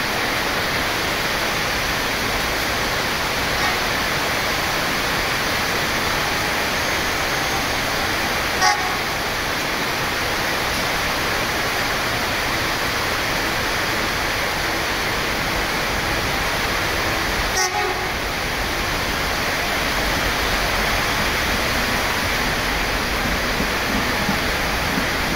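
Steady hiss of fairly heavy rain, with a few brief sharp sounds, the loudest about nine seconds in. In the last few seconds a low rumble grows as a KfW i9000 electric commuter train draws near.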